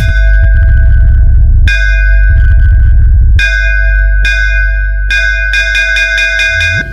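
DJ sound-check music: a bright bell-like synth tone struck rapidly, about five hits a second, alternating with long blasts of heavy deep bass in the first half.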